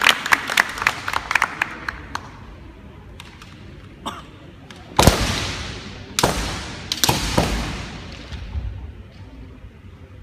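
Kendo bout: bamboo shinai clacking in a quick flurry of sharp hits, then a few scattered clacks. About five, six and seven seconds in come three loud strikes, each echoing in the gymnasium hall.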